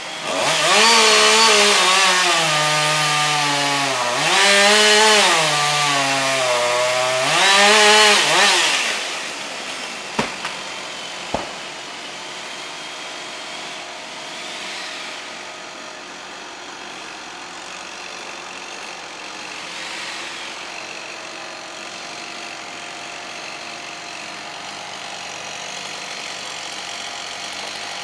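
Chainsaw revving up and down three times in quick succession. Then come two sharp knocks and a quieter steady drone.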